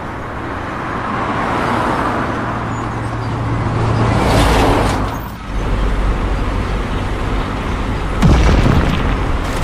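Heavy diesel machinery running with a loud, noisy rumble, and a sudden louder low thud about eight seconds in.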